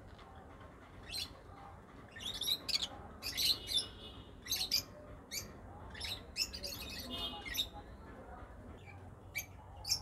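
Lutino cockatiels giving short, shrill chirps and calls, bunched into two flurries with brief chattering among them and a couple of single calls near the end.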